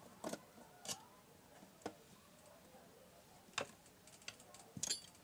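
Scattered sharp clicks and taps of small parts being handled at the needle plate and bobbin area of a Singer portable sewing machine during cleaning, with a short clicking rattle near the end. The machine is not running.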